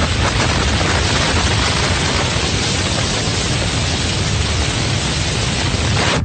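Loud, steady rush of wind and road noise overloading a phone's microphone in a car travelling at high speed.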